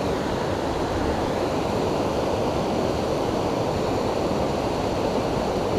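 Fast-flowing creek water rushing over a riffle, a steady deep rush with no change in level.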